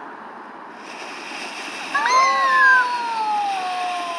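A firework fountain starts spraying with a steady hiss about a second in. At about two seconds a child lets out a long cry that slowly falls in pitch over the hiss.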